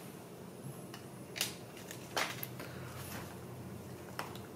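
Quiet room tone with a low steady hum, broken by a few faint short clicks and rustles of handling, about a second and a half and two seconds in.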